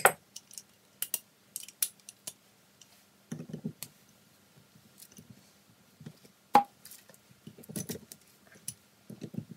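Metal tools and parts being handled on a workbench: scattered clicks and clinks with a few duller rattles. One sharp metallic clink, the loudest sound, comes about two-thirds of the way through and rings briefly.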